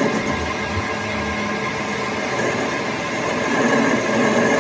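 Steady mechanical running noise: a continuous rumble with a few faint steady tones running through it.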